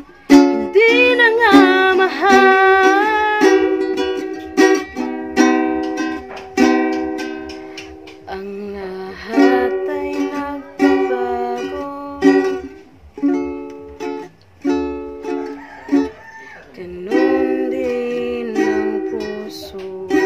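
Ukulele strummed in a steady pattern of chords that change every second or so. A woman sings softly along with it, most plainly a second or two in.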